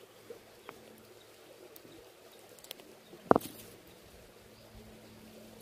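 Quiet background with a faint steady hum and a few small clicks, broken by one sharp knock a little over three seconds in.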